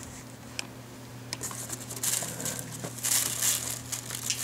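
Plastic crinkling as hands rummage through a plastic liner and blister-packed action figures in a cardboard case, with a few light clicks early on and a denser rustle from about two seconds in. A steady low hum runs underneath.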